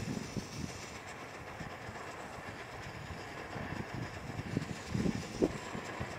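Svea 123 white-gas camp stove burning with a steady hiss as its preheating flame gives way to the blue burner flame, with a few short low rumbles partway through.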